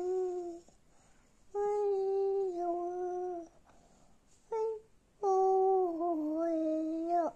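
Small child humming a lullaby in long held notes, each lasting one to two seconds, with short breaks between them and the pitch stepping down slightly within each note.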